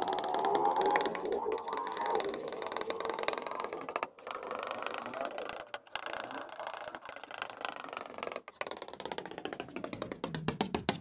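Metal palette knife pressing and spreading thick wet paint: a sticky, squelching crackle of many fine clicks, with a faint tone that slides slowly up and back down. It breaks off briefly three times.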